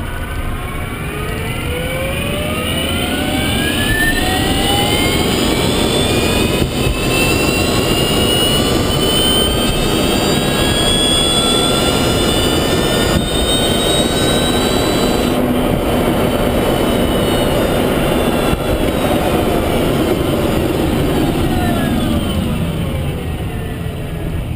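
Renault Zoe Q210's electric drive motor whining under tyre and road noise. The whine climbs in pitch as the car picks up speed over the first dozen seconds or so, holds, then drops as the car slows over the last few seconds.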